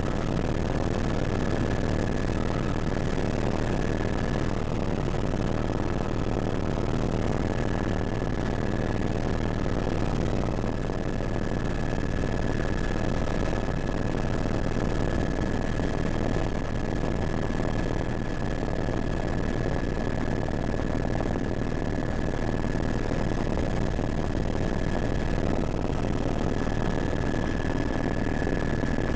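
Helicopter running steadily: a dense, even rumble with a thin, constant high whine on top.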